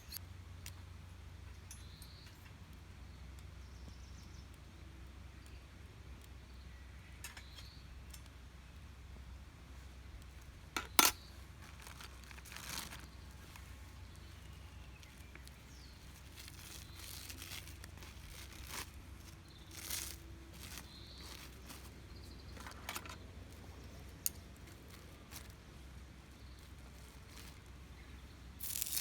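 Scattered light clicks and clinks from camp cooking gear being handled, with one sharp click about eleven seconds in. Right at the end, food starts sizzling as it goes onto the hot mini iron griddle.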